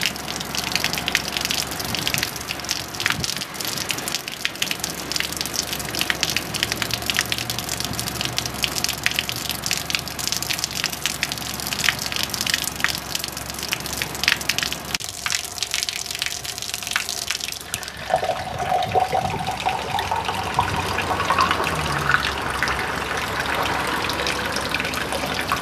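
Thin stream of water pouring from a clear plastic tube and splashing, with many small droplet ticks. About eighteen seconds in it starts pouring into a drinking glass, and its note rises steadily as the glass fills.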